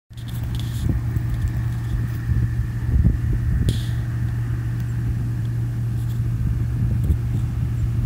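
Case IH 2188 combine harvesting: a steady low engine drone with a faint, even whine above it.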